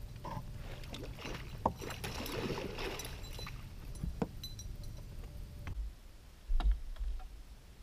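A hooked musky thrashing at the surface beside a boat and a landing net plunging into the water, with splashing and a few sharp knocks. The splashing dies down after about five seconds, leaving a quieter stretch with low thumps.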